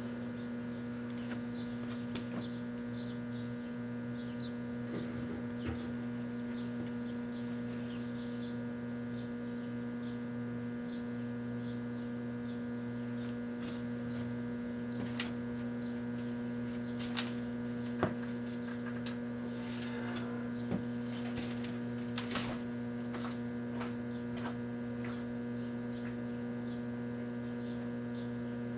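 Kenmore microwave oven running with a circular fluorescent bulb inside: a steady electrical hum, with scattered sharp clicks and crackles, mostly in the middle stretch.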